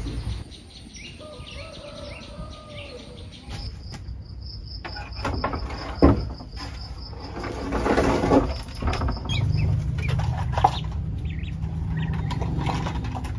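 A rapid, even run of short high chirps for several seconds, with a sharp knock about six seconds in and a low steady hum in the later part.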